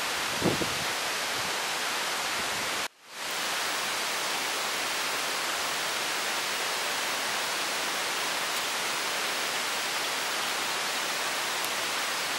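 Steady, even hiss of outdoor background noise, dropping out briefly about three seconds in where the recording is cut. About half a second in, a hen gives one short, low cluck.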